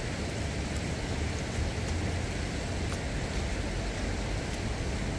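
Steady rushing of flowing river water, an even hiss with a low rumble underneath.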